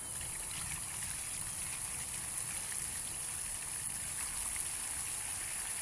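Water pouring steadily from a 5-gallon bucket onto a small RC helicopter and the grass around it, splashing and trickling.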